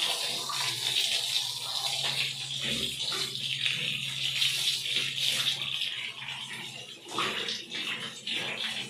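Water from a handheld shower hose spraying onto a wet dog's coat: a steady hiss, with a low hum underneath.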